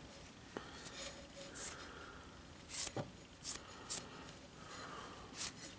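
Cloth rag dampened with thinners wiping the top face of a brass cylinder-block part: about five short, soft swishes of cloth rubbing on metal, with a faint click or two.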